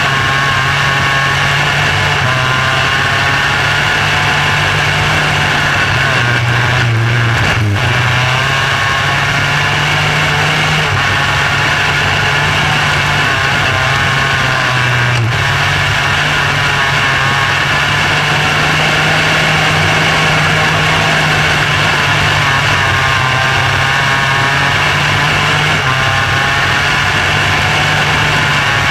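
Micro sprint car engine running hard at racing speed, heard from the open cockpit, its pitch rising and falling as the throttle is worked through the turns, with a brief dip about seven seconds in.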